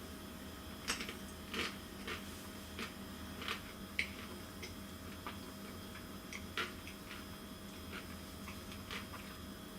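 Close-up chewing of a frozen chocolate-coated banana bite: irregular small crunches and clicks, roughly one or two a second, over a faint steady hum.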